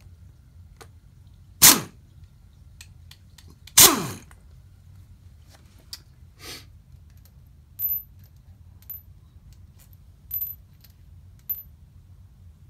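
Impact driver with a Torx Plus T30 bit running in two short bursts about two and four seconds in, spinning out the bolts of a Toyota VVT-i cam gear, its pitch falling as it winds down each time. Later, small steel bolts clink several times as they drop onto the concrete floor.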